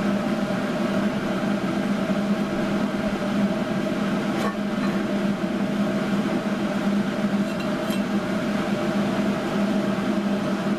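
Steady machine hum with a low droning tone and overtones, from an appliance-like motor or fan running, with a couple of faint metal clinks as transaxle gears are handled.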